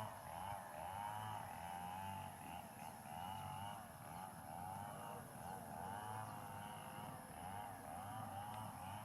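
Baby monkey crying in a continuous run of short, wavering calls that rise and fall in pitch.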